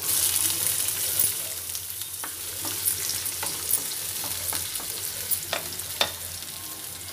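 Chopped onions sizzling in hot oil in a black kadai, loudest right after they go in and easing slowly. A wooden spatula stirs them, with a few sharp knocks and scrapes against the pan.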